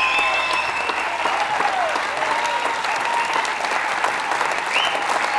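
Concert audience applauding steadily, with cheering voices rising and falling over the clapping.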